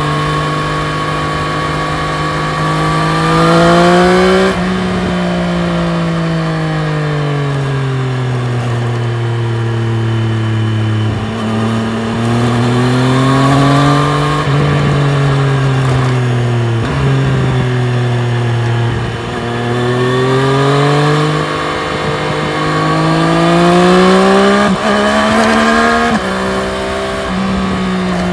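2020 Triumph Street Triple RS's 765 cc inline three-cylinder engine under way, revs climbing under acceleration and dropping sharply at the gear changes, about four seconds in and again near the end. Between the climbs the revs sink slowly as the bike slows.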